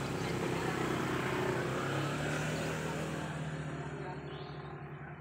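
A motor engine running steadily, growing gradually fainter over the second half.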